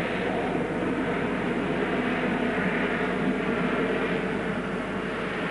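RAF Harrier GR7 hovering, its Rolls-Royce Pegasus vectored-thrust turbofan running with a loud, steady jet noise that swells slightly about halfway through.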